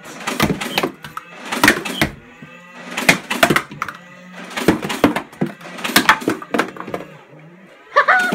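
Nerf Mega Mastodon's motorised flywheels humming steadily while it fires in repeated bursts as the drum is emptied, with clatter after each burst. Near the end the hum drops and then spins back up.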